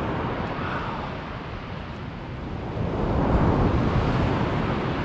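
Waves breaking on the beach, with wind rumbling on the microphone; the surf swells louder about three seconds in.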